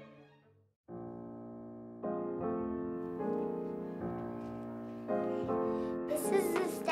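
Background piano music: slow, sustained chords changing about once a second, beginning after a brief silence.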